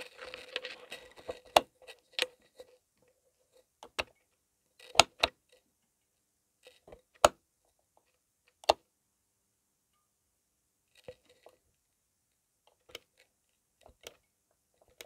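Fluorescent tube fitting's glow starter and ballast clicking as the tube tries to strike: sharp single clicks a second or two apart, fainter and sparser towards the end, with the starter cycling rather than ringing. A short buzzing hum comes before the first click.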